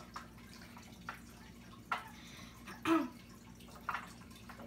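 Faint light clicks and soft knocks from handling fruit and bowls at a table, about one a second and loudest about three seconds in, over a low steady hum.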